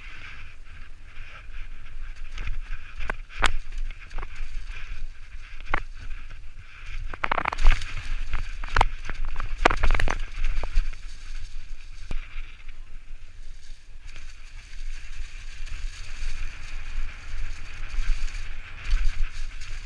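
Enduro mountain bike (Propain Tyee) rattling down a rough forest trail, tyres running over dry leaves and rock, with many sharp knocks from the bike hitting rocks and roots, densest from about seven to eleven seconds in. Wind rumbles on the helmet camera's microphone.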